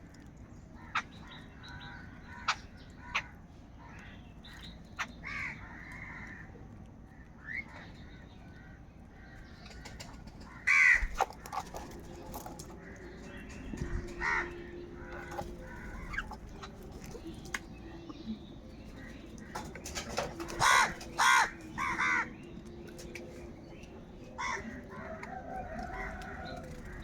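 A crowd of crows cawing: scattered harsh caws, the loudest about eleven seconds in and three in quick succession near the end, with sharp short clicks in between.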